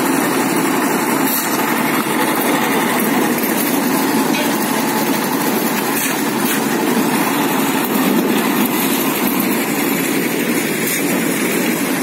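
Portable drum concrete mixer running steadily, its engine and turning drum making a constant even noise.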